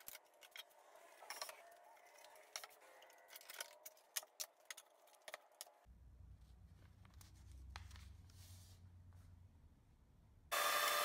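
Plywood offcuts being shifted and handled, the boards knocking and rubbing against one another in a quick run of sharp clacks. Then a low hum, and near the end a loud, steady woodshop machine starts abruptly.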